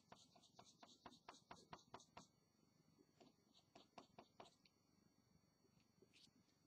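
Faint pencil hatching on drawing paper: quick, short strokes at about five or six a second for the first two seconds, then a few scattered strokes around four seconds in.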